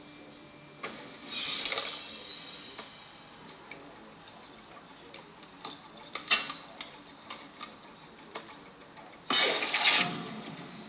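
Film soundtrack played through the JBL speakers of a Dell XPS 15 L502X laptop: a loud rush of noise about a second in, scattered sharp clicks and clinks, then another loud rush near the end.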